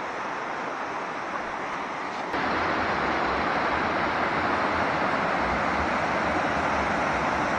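Steady rush of a mountain brook cascading over rock ledges, running high with snowmelt. About two seconds in it jumps suddenly louder and closer, with a low rumble under the hiss.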